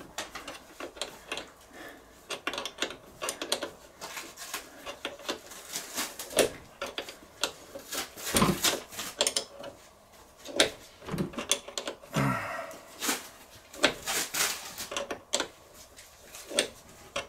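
Irregular clicks and small metallic knocks of a wrench working a car battery's terminal clamp tight.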